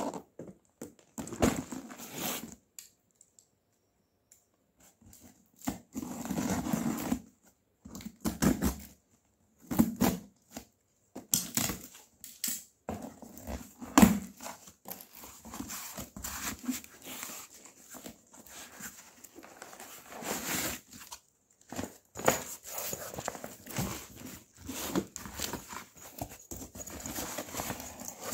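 A cardboard carton being handled and opened by hand: irregular crinkling, rustling and tearing of its packaging, coming in short bursts with brief pauses between them.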